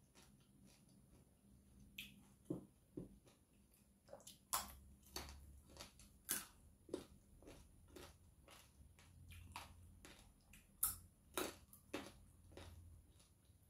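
A person chewing and biting food close to the microphone: soft, irregular mouth clicks and smacks, with a few sharper crunchy bites standing out now and then.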